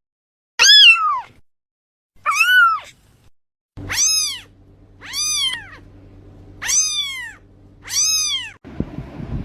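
Kittens meowing: six short, high-pitched meows, each rising then falling in pitch, spaced about a second apart. A faint low hum sits underneath from about four seconds in.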